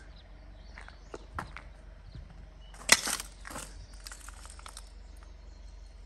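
Scattered light crackles and rustles of movement through dry weeds and brush, with one sharp crack about three seconds in, like a twig snapping underfoot.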